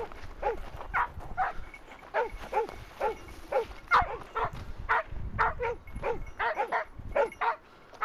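Hunting dog barking repeatedly in short barks that each drop in pitch, about two to three a second and faster toward the end, typical of a dog baying a wild boar it has run down.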